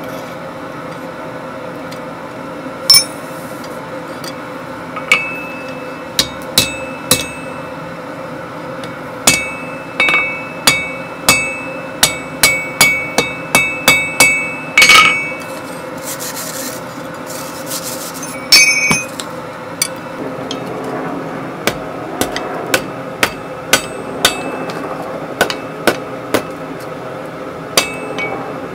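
Blacksmith's hammer striking hot iron on an anvil: irregular blows, with a fast run of about two a second in the middle, each giving a short metallic ring, and lighter taps in the last third. A few seconds of scraping midway through, over a steady hum.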